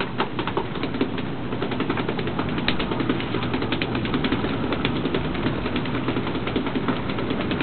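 Steady low drone of a fishing boat at sea with wash of water, under rapid irregular tapping and clicking.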